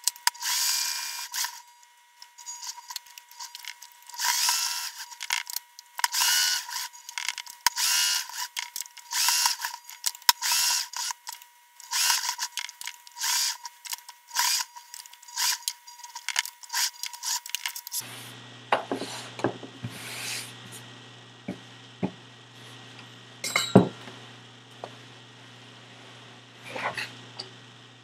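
Brother XL2600i electric sewing machine stitching in short runs, starting and stopping over and over as the seam is guided and turned at corners. About two-thirds of the way in the machine stops, and only a few scattered clicks and rustles of handling remain over a low hum.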